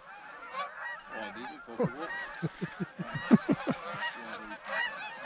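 A large flock of geese honking overhead: a dense chorus of many overlapping honks, with a run of louder, closer calls in the middle.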